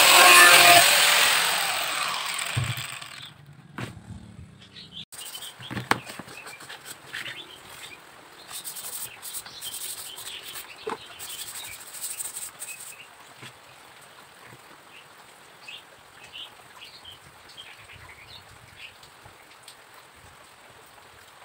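Handheld electric circular-blade saw cutting plywood, then its motor winding down and going quiet about three seconds in. Light knocks, clicks and scrapes of plywood and bamboo pieces being handled follow.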